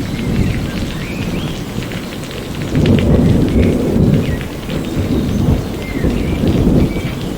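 Steady rain falling, with low rolling thunder that swells to its loudest about three seconds in.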